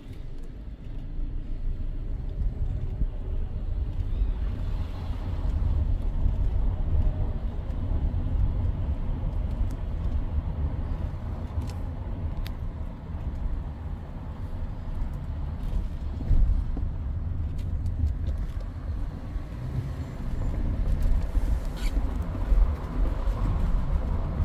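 Kia Soul driving, heard from inside the cabin: a steady low rumble of engine and tyre road noise that swells up in the first second or two and then holds even.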